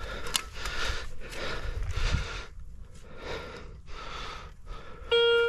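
Digging into field soil to recover a metal detector target: a run of rough scraping swells, roughly one a second. Near the end a metal detector sounds a loud, steady beep tone over the hole.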